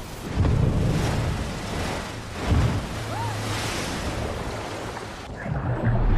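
Film sound effects of a violent storm at sea: rushing wind, rain and surging water over a deep rumble, with a heavy thump about two and a half seconds in. Near the end the high hiss drops away and the sound turns duller.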